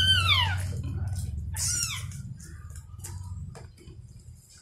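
Newborn kittens mewing, two high-pitched cries that fall in pitch, the second about one and a half seconds after the first, as they scramble for a teat to suckle. A low steady rumble runs underneath and fades out about three and a half seconds in.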